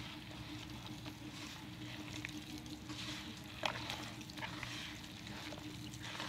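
A hand squishing and kneading raw chicken in a wet, floury marinade of egg, spice pastes and vinegar, with one sharp click a little past halfway. A steady low hum runs underneath.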